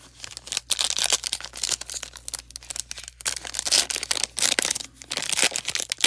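Plastic trading-card pack wrapper crinkling and tearing as a new pack is opened, with a continuous dense crackle.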